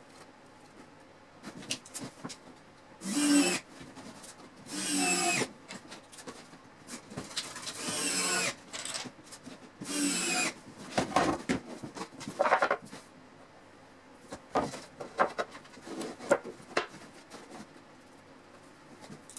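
Cordless drill-driver run in four short bursts, each about half a second with a sliding whine, driving screws into the plywood panels. Between and after the bursts come scattered knocks and clatter from the wooden panels being handled.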